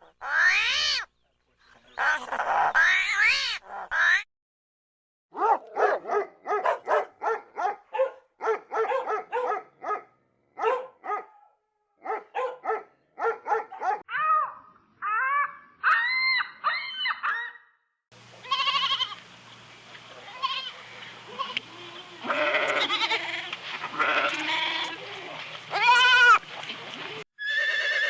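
A string of animal calls from several recordings cut together: short pitched cries repeated in quick runs, then, from about two-thirds of the way in, longer calls over a steady background hum.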